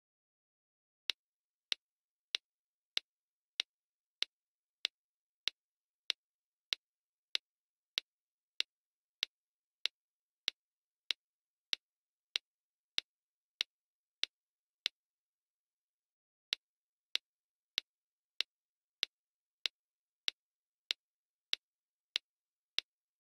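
A sharp, dry click repeated at a perfectly even pace, about one every two-thirds of a second, with a single pause of under two seconds about two-thirds of the way through. The clicks are identical and there is dead silence between them, like a click sound effect timed to a stop-motion build.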